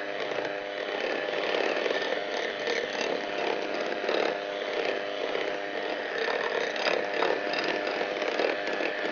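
Electric hand mixer running steadily, its beaters whipping a cream cheese, butter and icing sugar mixture in a glass bowl.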